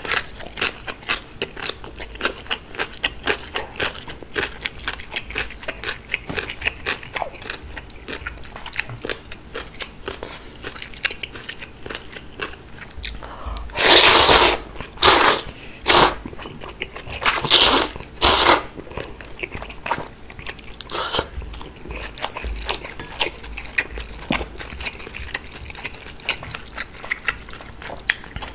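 Close-miked crunchy chewing of pickled yellow radish, rapid wet clicks and crunches, then about halfway through a run of loud slurps of thick cold udon noodles, followed by softer chewing.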